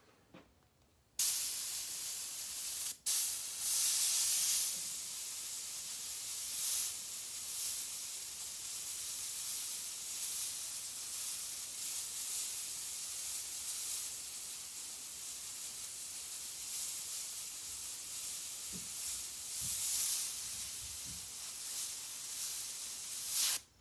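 Airbrush spraying paint: a steady high hiss of air through the brush that starts about a second in, breaks off once briefly, swells and eases as it goes, and cuts off just before the end.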